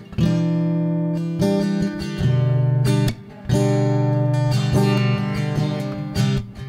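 Background music: acoustic guitar strumming chords, with a short break about three seconds in.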